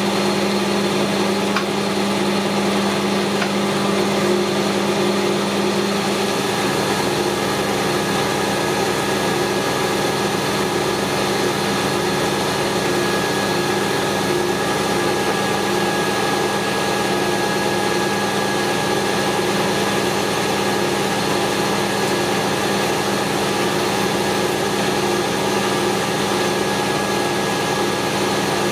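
Metal lathe running steadily, turning a piece of 100 mm round stock and cutting across its face to true it up; a constant machine hum that changes slightly about six seconds in.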